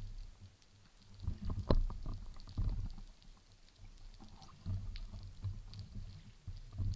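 Muffled knocks, clicks and low rumbles of a speargun and a speared fish being handled underwater, heard through a gun-mounted camera's waterproof housing. The sharpest knock comes just under two seconds in.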